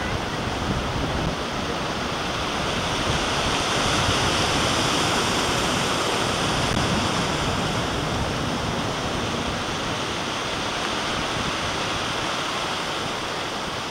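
Shallow river rushing and splashing over rocks in riffles, a steady rush of water that cuts off suddenly at the end.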